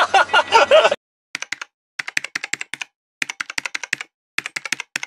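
Keyboard typing sound effect: quick key clicks in four short runs with brief pauses between them.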